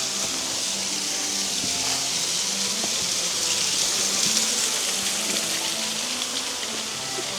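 Waterfall rushing steadily, swelling slightly about halfway through, with flute-and-harp background music playing softly over it.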